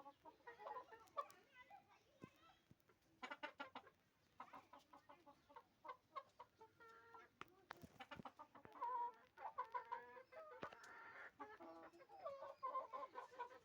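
Hens clucking on and off in short runs of quick calls, with brief pauses between them.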